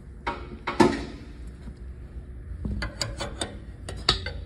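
Tire changer's metal mount/demount head being set against a wheel rim: a sharp metal clank with ringing about a second in, then a quick run of lighter clicks and knocks near the end.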